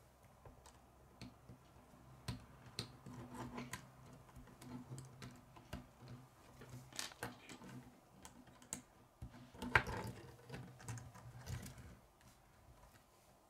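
Plastic K'nex rods and connectors clicking and snapping together as they are fitted by hand, with irregular light clicks and clatter; the loudest snap comes near ten seconds in.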